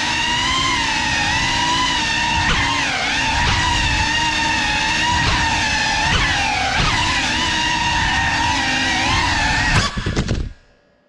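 GEPRC Cinelog 35 cinewhoop drone's motors and propellers whining, the pitch rising and falling with throttle. Near the end it crashes with a few knocks, and the motors cut out to near silence.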